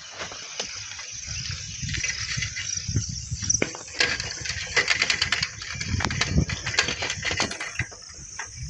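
Old steel bicycle rattling and clattering as it is ridden over a rough, stony dirt road, the clatter thickest about halfway through, with a low rumble of wind on the microphone.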